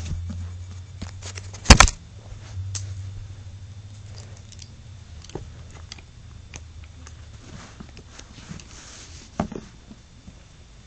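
Handling noise: scattered clicks and small knocks, with one loud rattling clatter about two seconds in and a sharper knock near the end, over a low hum that fades after the first few seconds.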